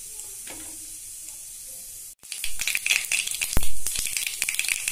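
Cumin and mustard seeds sizzling in hot oil in a kadhai while being tempered for a tadka. A soft steady sizzle cuts out briefly about two seconds in, then comes back louder, full of quick crackling pops as the seeds splutter, with one loud thump about three and a half seconds in.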